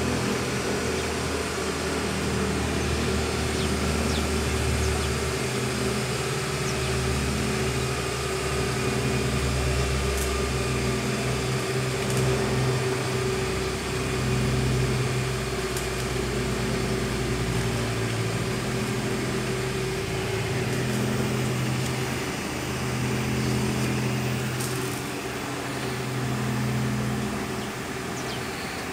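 Cable caterpillar haul-off machine running: a steady machine hum made of several held low tones that swell and fade slightly in level.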